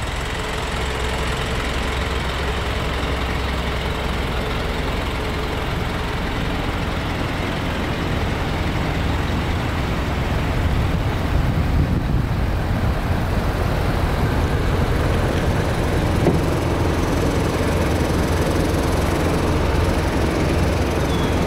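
Isuzu 4HK1 5.2-litre turbo-diesel idling steadily in a box truck.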